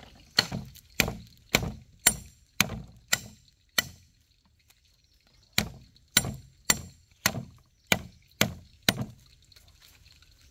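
A knife chopping on a wooden cutting board: sharp, even strokes just under two a second, in two runs of seven, with a pause of about a second and a half between them.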